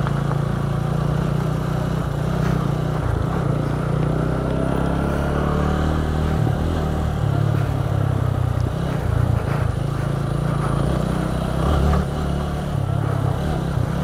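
TVS Apache RTR 200 4V single-cylinder motorcycle engine running at low revs, its pitch shifting a few times as the throttle is worked.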